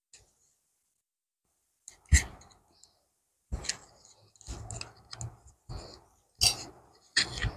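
Scissors snipping through cotton print fabric, a series of short, crisp cuts starting about two seconds in, roughly one a second.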